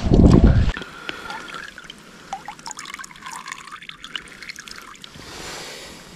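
A gust of wind rumbles on the microphone and stops within the first second. Then water trickles and drips softly, with small scattered splashes.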